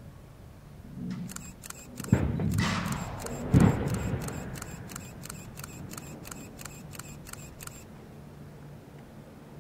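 Underwater rock-plug blast: a sharp report about two seconds in, then a heavier low boom about a second and a half later, its rumble dying away over a few seconds. Through it runs a rapid series of regular clicks, about three a second, which stops near the end.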